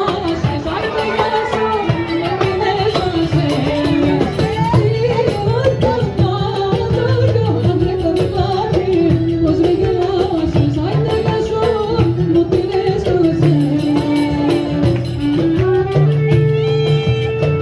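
Middle Eastern–style folk music: an ornamented melody sliding up and down over a steady low bass. About sixteen seconds in, the melody gives way to long held notes.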